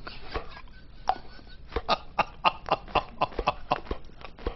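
Laughter in a quick run of short chuckles, about four a second, starting a little over a second in.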